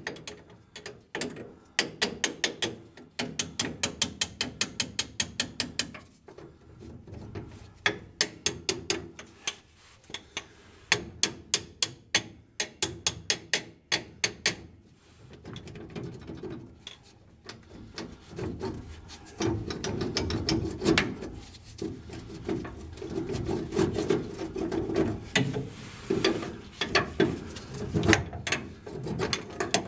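Metal ratchet wrench lightly tapping on the front leaf spring bolts of a 1949 GMC truck and clicking as it works them. Runs of quick metallic clicks, about five a second, come in the first half. Busier clicking and scraping follow in the second half.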